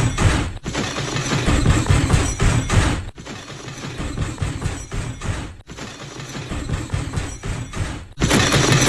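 The MGM elephant smash sound effect: a dense cartoon crash of thuds, clatter and breaking, repeated in back-to-back pieces of about two and a half seconds that cut off abruptly and start again.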